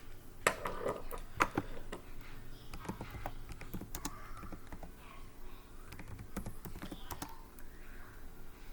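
Typing on a computer keyboard: irregular key clicks, a few sharper ones in the first second and a half, then lighter ones.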